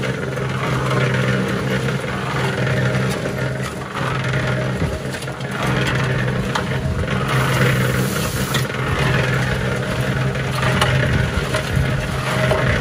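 Harbor Freight electric cement mixer running, its motor humming steadily while the turning drum tumbles dry concrete mix with a rough, rushing churn. A hiss of water from a hose spray nozzle joins in for about a second near the middle.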